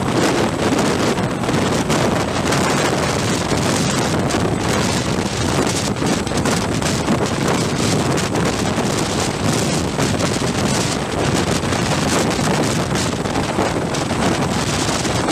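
Sikorsky CH-53E Super Stallion heavy-lift helicopter hovering low with a sling load, its rotor downwash buffeting the microphone: a loud, steady rush of rotor noise and wind.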